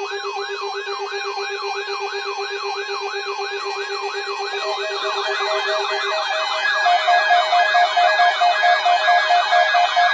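Weather radio alert tones made of layered electronic siren sounds: several tones sweep up and down about three times a second over a steady low tone. A second, faster sweep joins about halfway through, and about two-thirds of the way in a louder beeping tone enters at about four beeps a second.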